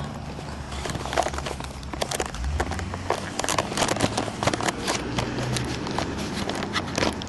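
Handling noise from a handheld camera being carried and swung about: many irregular clicks, knocks and rustles over a low steady hum.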